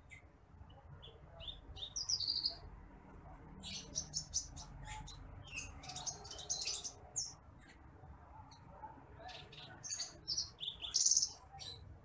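A titimplik (branjangan apung), a small rice-field pipit, gives short high chirps and twitters. They come in three loose bursts, about two seconds in, from about four to seven seconds, and from about nine to eleven seconds, with quieter gaps between, over a faint low rumble.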